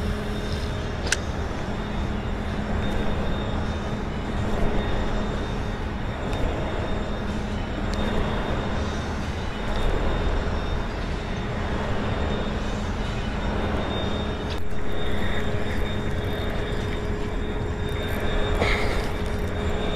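Steady machinery hum with a few constant tones, under an even wash of wind and water noise aboard a boat. A few faint clicks come through.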